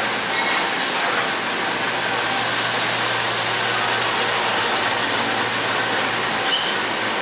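Pacific National NR-class diesel-electric locomotives running at the platform: a steady engine hum over a noisy rumble, with a brief high squeal near the end.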